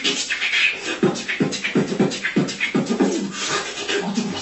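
A woman beatboxing: short pitched vocal sounds and sharp mouth-made percussive hits in a quick, steady rhythm.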